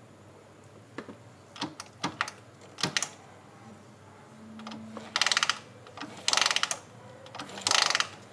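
Hand tools on metal: a few sharp clinks and knocks, then three short bursts of rapid ratcheting about a second apart, as a ratchet is worked back and forth.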